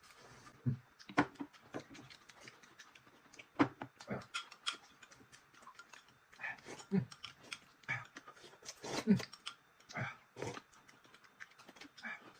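Close-up eating sounds: rice noodles being slurped and chewed in short, irregular bursts.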